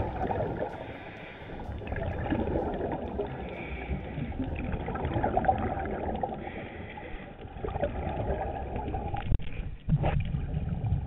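Underwater sound of scuba diving heard through the camera's housing: a steady muffled rushing, with swells of regulator exhaust bubbling every few seconds. Near the end come a few knocks and brief dropouts as the camera housing is handled.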